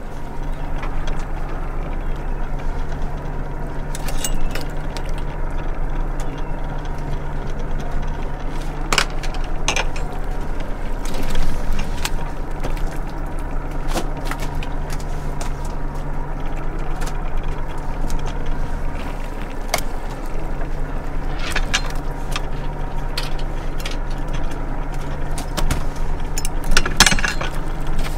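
Fishing boat's engine running with a steady low drone. Scattered metallic clinks and knocks of fishing gear sound over it every few seconds.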